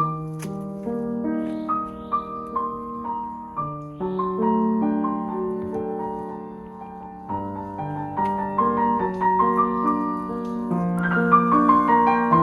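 Background music: a gentle piano melody played over sustained chords, growing louder near the end.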